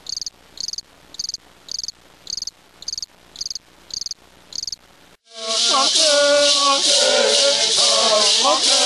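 A cricket chirping steadily, about two short high chirps a second. About five seconds in the chirping stops and loud music starts: voices singing over a constant hissing rattle.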